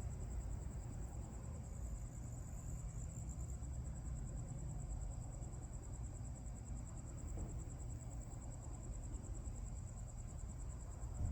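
Crickets chirping in a steady, fast-pulsing high trill, over a low background rumble.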